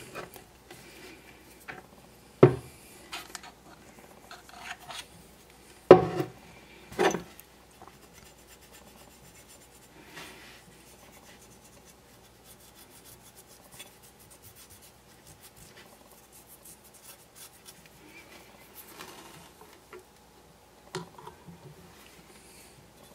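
Cotton swab scrubbing grime off a small plastic model-train bogie frame, a soft scratchy rubbing, with a few sharp knocks of the plastic parts being handled, the loudest about 2.5 and 6 seconds in.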